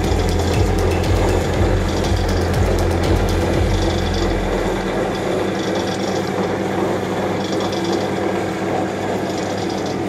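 Metal lathe taking a light finishing cut on a bar of D6 tool steel, with coolant flowing onto the cut: a steady machining noise with fine rapid ticking. A low hum drops away about halfway through.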